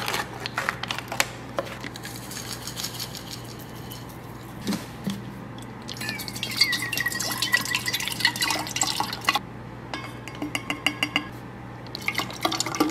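Kitchen preparation sounds. Clicks and rustles come first as a yogurt cup's lid is peeled off. From about halfway through, liquid is poured into an open insulated metal water bottle, giving a pouring tone with drips and clinks.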